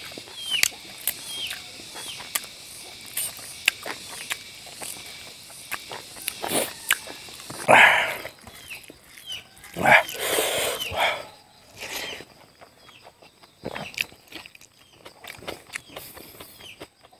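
Close-miked eating of chicken and rice by hand: wet chewing, smacking and sucking mouth noises with frequent small clicks, loudest about eight and ten seconds in. Short high chirps that fall in pitch repeat in the background during the first half.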